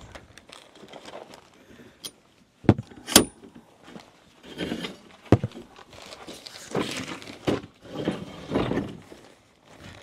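Camping gear being handled: a few sharp knocks and clicks, three of them loudest through the middle, with stretches of rustling and shuffling in between.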